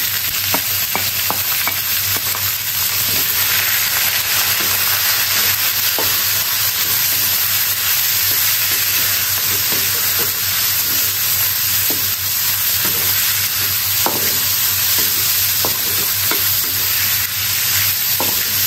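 Fermented pork (bekasam babi) frying in hot oil in a wok with shallots and ginger, a steady sizzle, with short taps and scrapes of a spatula on the wok now and then as it is stirred.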